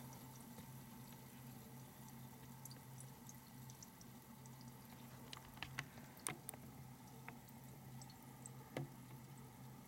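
Carbonated water with table salt in it, fizzing faintly in a glass: scattered tiny bubble pops over a low steady hum. A few sharper clicks come about six seconds in and again near the end.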